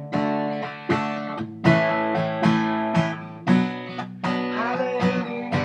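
Acoustic guitar strummed in a steady rhythm, chords ringing out between strokes about once or twice a second, with no voice.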